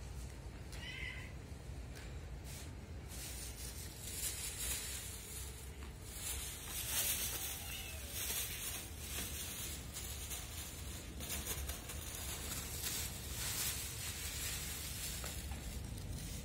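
Hungry stray cats meowing now and then as they wait to be fed, over a continual crinkly rustle and a low steady hum.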